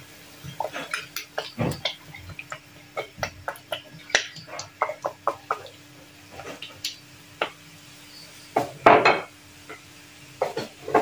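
Kitchen utensils and containers clinking and knocking in quick irregular taps as ingredients go into the aluminium wok, with a longer, louder clatter about nine seconds in.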